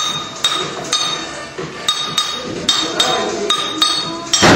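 Metal rod knocking on a hot metal casting mould: repeated sharp metallic clinks, each ringing briefly, about two a second at an uneven pace, with one heavier, noisier clank near the end.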